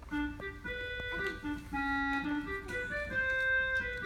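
Organ-like keyboard music: held notes in a melody over a lower moving line, several notes sounding at once.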